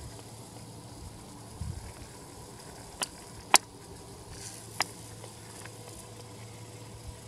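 Wooden A-frame sound machine driven by a small electric motor, its swinging wooden leg knocking: three sharp clicks in the second half, the middle one loudest, over a faint low steady hum.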